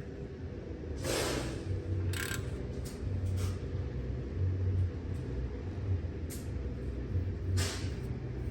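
Engine running rough with an uneven low pulsing, misfiring on cylinders 1 and 4 from a lack of compression that turns out to be broken valves. A few short hisses sound over it, the first about a second in and another near the end.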